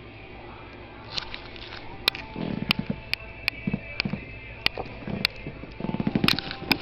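A cat rolling and rubbing on dryer sheets on a carpet: a scattering of sharp crackling clicks, mostly in the second half, with short low rustling bumps.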